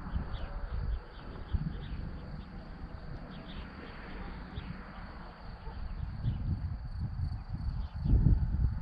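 Wind gusting across the microphone as an uneven low rumble that peaks near the end, with many short, high chirps of small birds over it.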